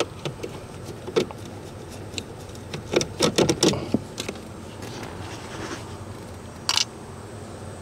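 Scattered clicks and light rattles of a Phillips screwdriver working screws out of a 1992 GMC 3500's plastic dashboard trim. There is a cluster of clicks about three seconds in and a short rattle of loose trim near the end.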